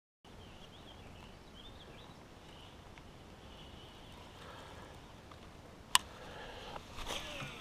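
Faint birds chirping over quiet lake ambience. About six seconds in, a single sharp click from the baitcasting reel being handled, then a brief rustling, whirring stretch near the end as the rod is readied to cast.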